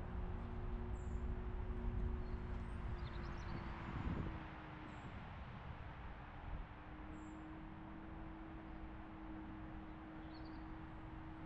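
A car being driven: engine hum and road rumble, louder for the first few seconds and then settling lower and steadier about four seconds in.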